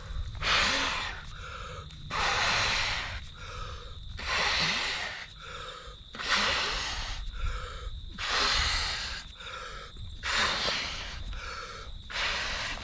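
A person blowing up an inflatable sleeping mat by mouth: a long, strong breath blown into the valve about every two seconds, with a quick breath drawn in between each.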